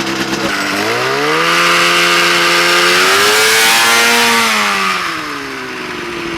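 Two-stroke snowmobile engine in a go-kart revving from idle: the pitch rises about half a second in, holds, climbs higher a few seconds in, then drops back to idle near the end. The owner hears this engine as bogging and starving for fuel, and takes it to need bigger carburettor jets.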